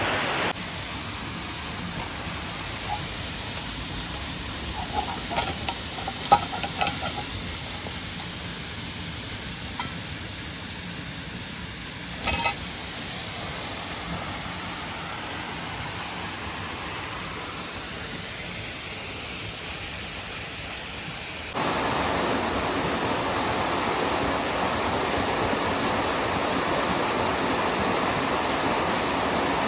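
Steady rush of a mountain stream and waterfall, quieter for most of the stretch and then suddenly louder about two-thirds of the way through. A few light clicks and knocks come in the quieter part, with one sharper knock near the middle.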